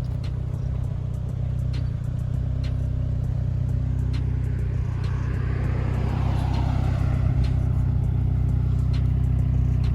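Mitsubishi Lancer Evolution X's turbocharged four-cylinder running steadily through a muffler-deleted exhaust, a low even drone. A rushing noise swells and fades about six seconds in.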